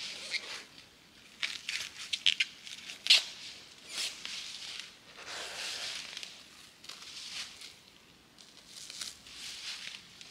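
Rustling and crinkling handling noises, with a quick run of sharp clicks between about one and a half and three seconds in.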